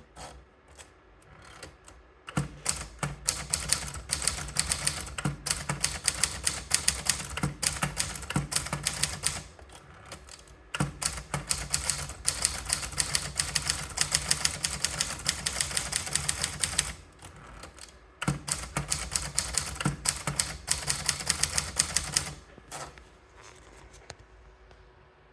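Contessa De Luxe manual typewriter being typed on: a few scattered keystrokes, then three runs of rapid key strikes separated by short pauses, dying away near the end.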